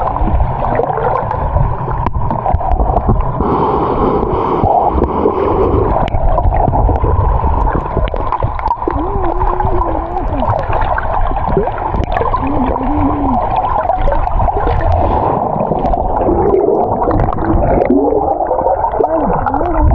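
Continuous muffled water gurgling and churning, with a few short wavering low tones.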